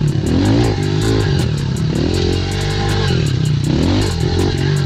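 Dirt bike engine revving up and dropping back again and again as the bike is ridden over a track of jumps.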